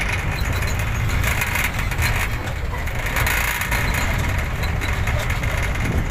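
Steady rumble of a moving vehicle, its engine and tyres running on a dirt track.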